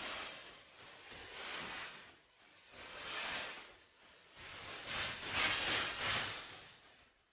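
A street cat hissing several times in long breathy hisses, the loudest about two thirds of the way through.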